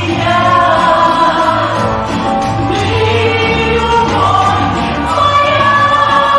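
A woman singing a song in long held notes over a backing track with a steady, repeating bass.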